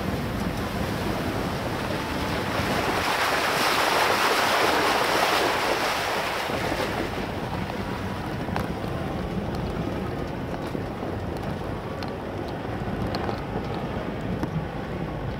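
Off-road vehicle driving a rough dirt track with a low engine rumble. About three seconds in, a loud rushing splash rises for about four seconds as its tyres ford a shallow rocky stream. Scattered knocks follow as it rolls on over stones.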